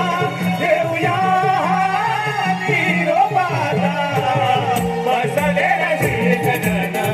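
Konkan Naman folk song: a solo voice singing a wavering, ornamented melody over accompaniment with a steady beat.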